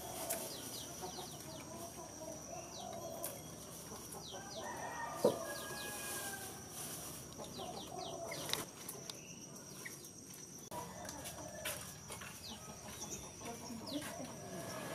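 Rural yard ambience: chickens clucking, with many short high chirps over a steady high-pitched whine. A few sharp clicks stand out, the loudest about five seconds in.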